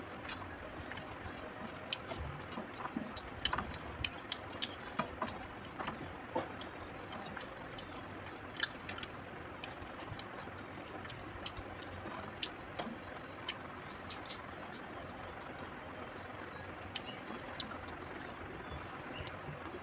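Close-up eating by hand: scattered small clicks of chewing and lip smacking, with fingertips scraping on a steel plate, over faint steady background noise.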